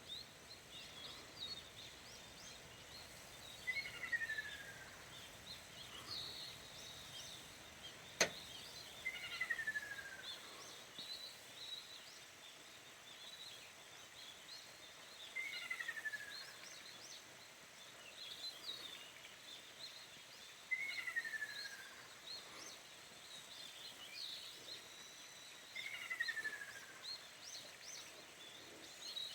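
A ruddy kingfisher, as the recorder takes it to be, gives a descending rolling call five times, about every five to six seconds, over a steady background of other birds' high chirps. A single sharp click comes about eight seconds in.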